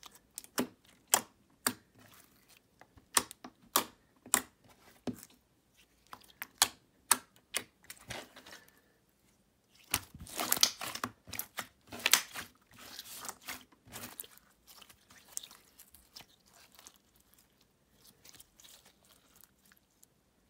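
Slime being stretched and squished by hand, giving off sharp clicks and crackles at an irregular pace, with a dense run of crackling about halfway through and fainter clicks toward the end.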